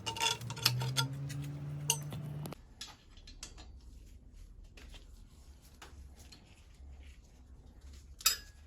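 Light metallic clicks and taps from hand tools working on a bicycle stem, the sound of the stem being loosened and pulled from the frame. A steady low hum runs under the first couple of seconds and cuts off suddenly. Then come faint scattered ticks and one sharp click near the end.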